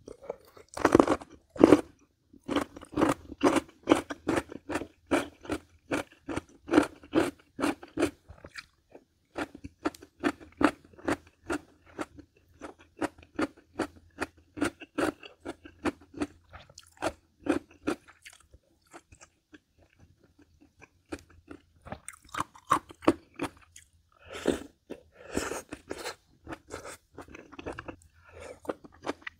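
Close-up chewing of crunchy food in a steady rhythm of about three crunches a second. It pauses for a few seconds about two-thirds of the way through, then starts again.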